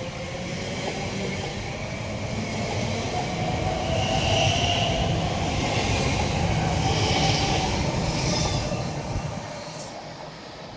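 Elizabeth line Class 345 electric train pulling out of the station: a rumble of wheels on rail that builds, with short wheel squeals around the middle, then dies away about nine seconds in.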